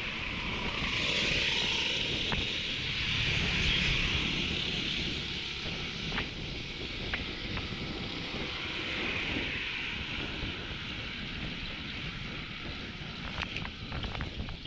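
Wind rushing over the microphone of a road bike moving at about 25 km/h, with an oncoming vehicle passing a second or so in, when it is loudest. A few faint clicks.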